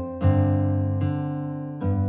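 Background music of an acoustic guitar strumming chords, with a new chord struck about a quarter second in and another near the end.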